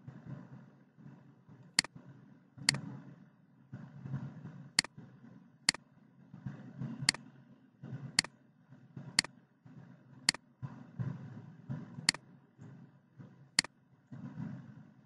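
About ten sharp computer-mouse clicks, irregularly spaced roughly a second apart, over a faint low background hum.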